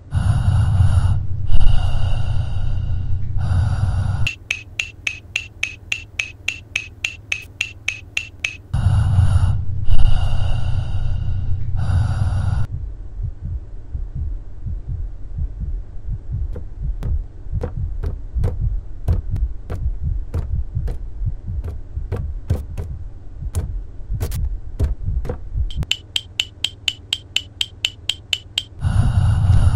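Electronic sound design: blocks of a loud low throbbing drone with a high buzzing edge, broken by stretches of fast regular pulsing, about five pulses a second. Through the middle it turns to irregular clicks and thuds over a low hum, then the pulsing and the drone return near the end.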